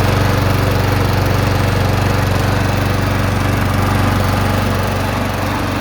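Sabo 47-A lawnmower engine running steadily in economy (reduced-speed) mode, easing off slightly near the end.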